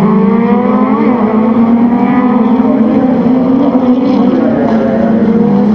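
Several folkrace cars racing together at high revs, their overlapping engine notes rising in pitch and dropping back as they accelerate and shift.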